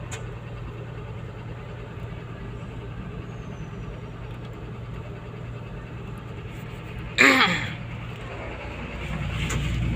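Komatsu PC200-8 excavator's common-rail diesel engine running with a steady low hum, with a brief loud burst that falls in pitch about seven seconds in. The engine note grows louder from about nine seconds on.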